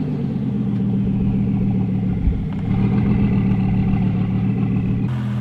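BMW 520d diesel engine idling roughly, its note shifting a couple of times as the idle hunts up and down; the owner traced the rough idle and stalling to a faulty fuel quantity control valve.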